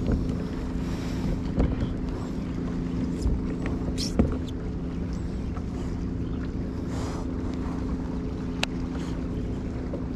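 Steady low motor hum, with a few sharp clicks and knocks from a kayak angler handling a baitcasting rod and reel.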